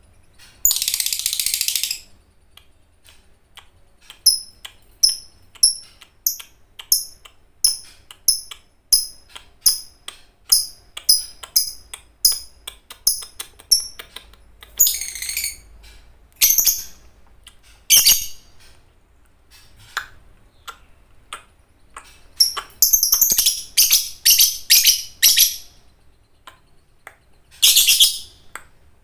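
Lovebird calling in the fighter style that keepers call ngekek: a short harsh chattering burst, then a run of sharp chirps about two a second, then more chattering bursts, the longest about three-quarters of the way through.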